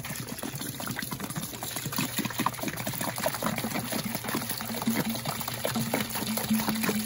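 Apple cider vinegar poured from a plastic bottle into a cooler of brine, a continuous splashing pour into the liquid.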